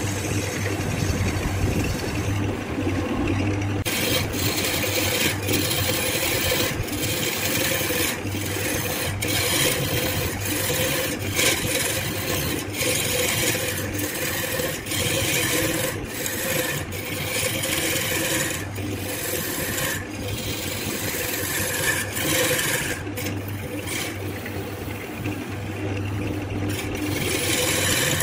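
A tool rasping against a spinning workpiece on a wood lathe over the lathe motor's steady hum. The rasping is broken by many brief pauses.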